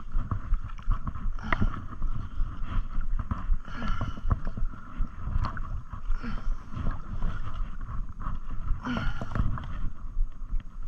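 Muffled low rumble of water movement with many small knocks, and a brief hissing splash about every two and a half seconds.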